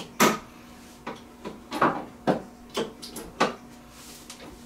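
Irregular knocks and scrapes of cardboard packaging being pulled and handled against a wall-mounted TV, about eight in all, the loudest just after the start.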